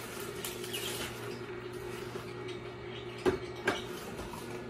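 Tribest Green Star Elite twin-gear juicer running with a steady hum as it crushes and presses leafy greens, with two sharp knocks about three seconds in.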